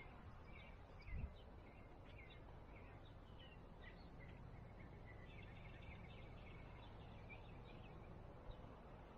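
Faint outdoor background with small birds chirping over and over, and a brief low thump about a second in.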